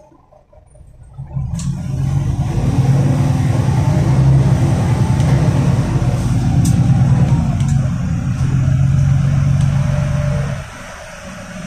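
Inside the cabin of a Volgabus 5270-G2 CNG city bus: about a second in the engine comes up to a loud, steady deep drone under load with road noise. It drops back sharply near the end.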